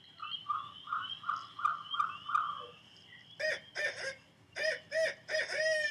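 Barred owls calling back and forth with non-hoot caterwauling, played from a field recording: first a quick run of about eight short, even notes, then from a little past halfway several loud, harsh, wavering squalls.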